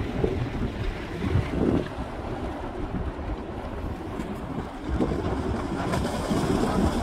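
Erupting fissure cone roaring steadily as it throws up lava fountains, like distant surf, with wind buffeting the microphone. It swells louder from about five seconds in.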